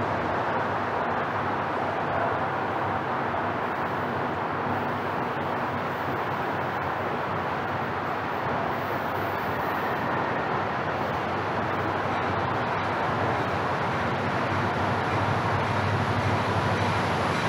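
Norfolk Southern freight train rolling past: a steady rumble that grows a little louder near the end.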